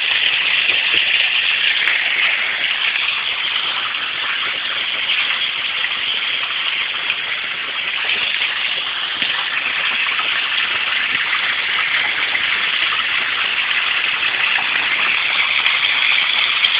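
Rock-style garden waterfall fountain running, with water pouring down its face into the basin in a steady splashing rush.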